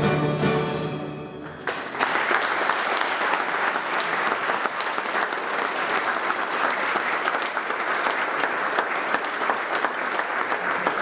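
An orchestra's closing notes fade away, and about two seconds in the audience starts applauding steadily.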